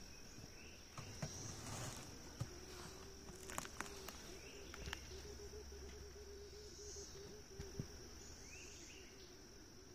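Honeybees buzzing inside a five-frame cardboard nuc box: a faint, wavering hum that sets in about two and a half seconds in, over a steady high insect trill and a few light knocks. The bees are stirred up, "screaming", after being jostled in transport.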